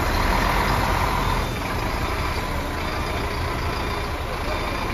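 Mercedes-Benz heavy diesel truck engine running steadily, a low even drone.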